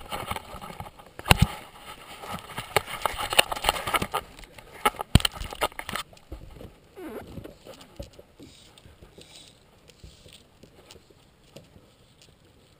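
Close clicking, knocking and rustling on the camera's microphone for about six seconds, the handling noise of a hat-mounted action camera just switched on. Then it drops to quieter faint knocks with brief snatches of voice.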